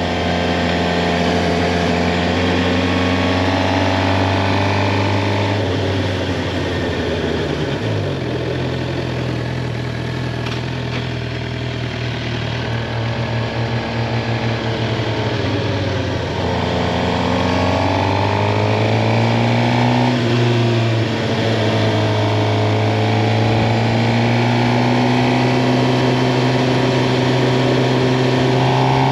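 Suzuki GSX-R 750 sportbike's inline-four engine running while riding, its pitch falling and rising several times as the bike slows and accelerates.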